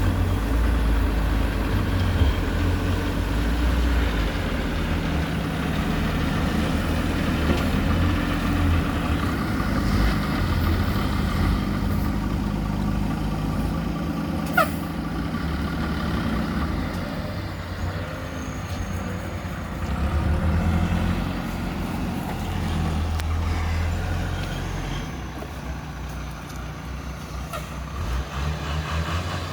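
Diesel engines of a JCB 3DX backhoe loader and a Tata 1613 dump truck running under varying load, with a brief sharp squeak about halfway through.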